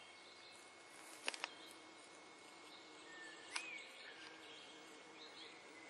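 Quiet outdoor ambience: a faint steady hiss with a thin high steady tone, a few faint bird chirps, and two small clicks, one about a second in and one midway.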